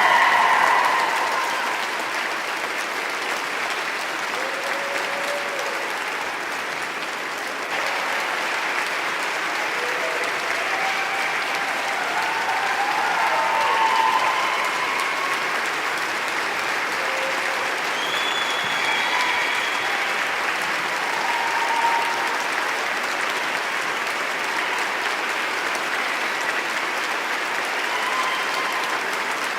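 Audience applauding steadily, dense continuous clapping, with a few voices calling out faintly above it now and then.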